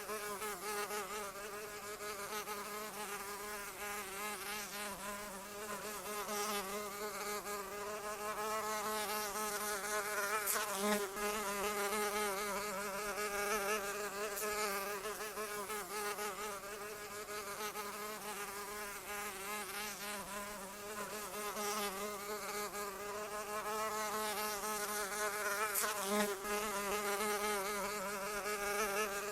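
Flying insects buzzing continuously: a wingbeat drone whose pitch wavers slightly up and down, with a brief louder swell about a third of the way in and again near the end.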